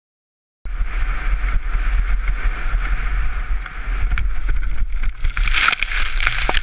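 Skiing heard through a GoPro Hero 3's microphone, starting about half a second in: wind buffeting the camera and skis scraping over snow. Near the end comes a louder rushing, crunching burst as the skier crashes into the snow.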